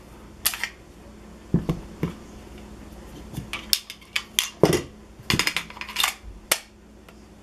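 Handling of a Sig Sauer P226 pistol and its steel magazines: a dozen or so sharp, irregular clicks and clacks as a magazine is taken out of the pistol and handled, the loudest about two-thirds of the way in.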